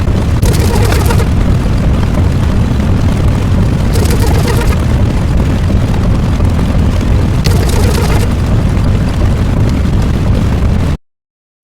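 Loud, continuous low rumbling sound effect with a hiss that swells about every three and a half seconds, cutting off abruptly to silence near the end.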